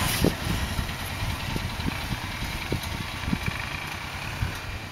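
ATV engine running at low speed with an uneven low rumble, growing fainter as the quad moves off along the dirt trail.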